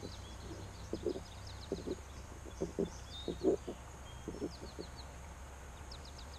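Birds chirping in short series of quick falling notes, with one brief whistle about three and a half seconds in, over soft irregular thuds.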